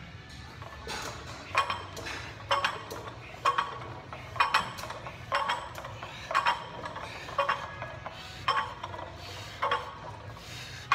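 Loaded barbell clinking and rattling with each bench-press rep, about nine times at roughly one rep a second: weight plates and collars knocking on the bar as it is pressed and lowered.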